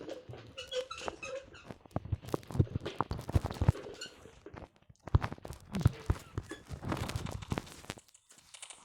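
Irregular knocks, taps and rustling, with a few short high squeaks about a second in and again around four seconds in.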